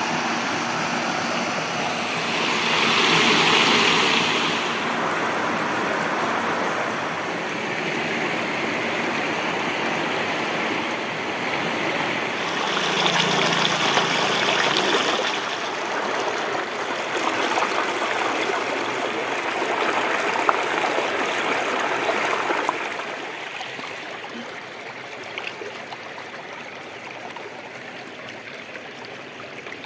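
Running water: a shallow stream pouring over rocks and a low weir. It swells louder twice, then drops to a quieter, gentler flow for the last several seconds.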